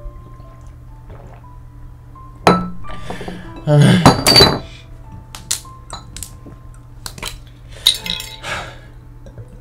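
Glass bottles clinking and knocking: a sharp knock about two and a half seconds in, a loud clattering clink around four seconds, then several lighter clinks. Soft music plays underneath.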